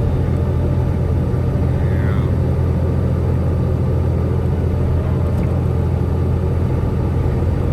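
Steady low rumble of a semi truck's engine and road noise heard inside the cab while driving.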